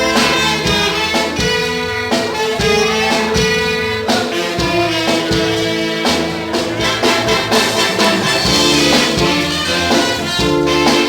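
Church band and orchestra playing an instrumental passage of a gospel song: sustained ensemble chords with a regular drum beat underneath.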